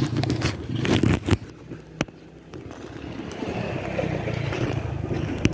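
Muffled knocking and rubbing of a plastic waterproof phone pouch being handled and pushed into an aquarium, heard through the phone's microphone sealed inside the pouch. From about two and a half seconds in, a steady muffled rumble as the pouch sits in the water.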